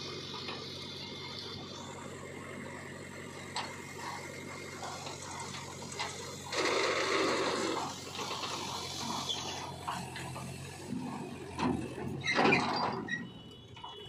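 Load of dry soil sliding and pouring out of a tractor's hydraulic tipping trailer as the bed is raised. The earth rushes off in a loud pour about halfway through and again near the end, over the steady running of the Mahindra 475 DI tractor's engine.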